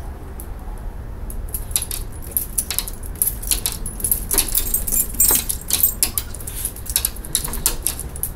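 Rapid clicking and jingling as small dogs jump and paw at a glass sliding door, their claws striking the glass and metal frame, starting about a second and a half in and continuing in quick irregular bursts.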